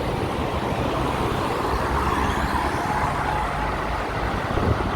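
Steady road traffic noise: cars and trucks running past on a busy multi-lane road.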